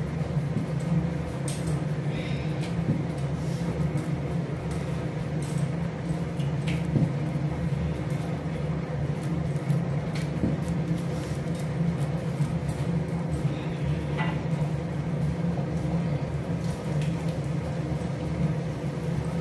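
A steady low hum, with soft squishing and a few light taps as hands press a wet shredded-vegetable mixture into balls against a steel bowl.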